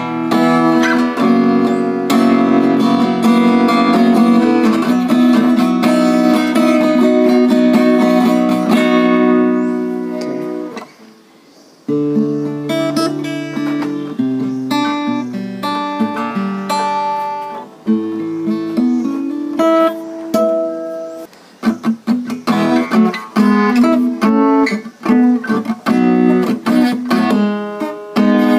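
Cowboy GWC-235 NS acoustic guitar played unplugged: strummed chords ring out for about ten seconds and fade away. After a brief pause come picked single notes and chords, and near the end a quicker, busier strumming pattern.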